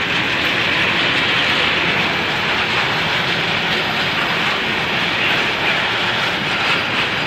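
Freight train of tank wagons, hauled by a diesel locomotive, rolling past: a steady, loud noise of wheels running on the rails.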